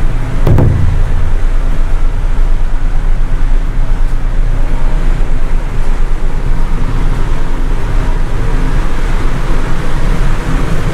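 Wind buffeting the microphone on the open deck of a ferry at sea: a loud, steady rush over a low rumble, with a heavier gust about half a second in.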